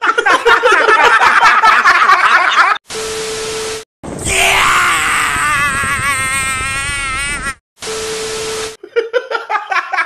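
Several men laughing loudly together, cut off by a burst of TV-style static with a steady beep. Then a man gives one long yell with a wavering pitch, a second static-and-beep burst follows, and a man laughs hard in quick repeated bursts.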